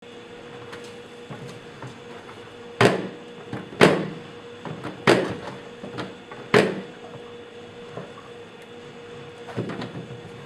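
The hinged plastic lid of a Nexus Shuttle waste bin being slammed open and shut in a vandalism test: four loud bangs a second or so apart, then a softer knock near the end. A steady hum runs underneath.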